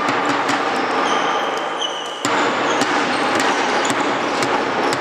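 Handball being played on a wooden sports-hall floor: irregular thuds of the ball bouncing and players' feet, with a few short high shoe squeaks about one to two seconds in, over a steady echoing hall noise.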